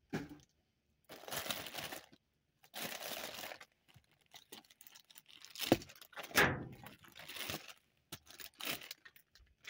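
Plastic trash bags and produce wrappings crinkling and rustling in bursts as a grabber pole pokes and shifts them, with two sharp knocks a little past the middle, the loudest sounds.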